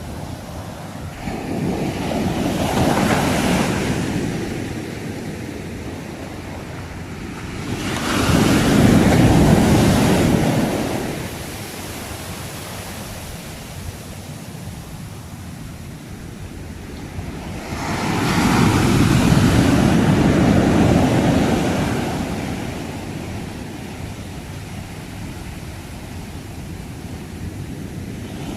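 Sea waves breaking on the shore: three waves crash and wash in, about a second, eight seconds and eighteen seconds in, each swelling and fading over a few seconds over a steady surf hiss.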